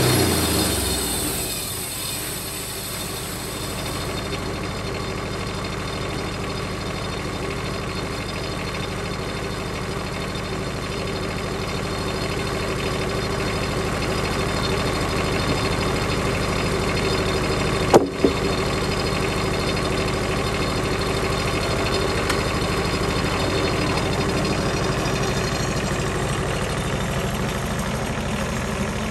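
Wood-Mizer LT15 portable bandsaw mill running steadily under load as its blade saws along a log, with one sharp knock about 18 seconds in. The engine note drops and settles in the first couple of seconds.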